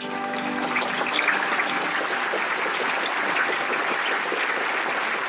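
Theatre audience applauding, steady and dense. The orchestra's last chord dies away under it in the first half-second.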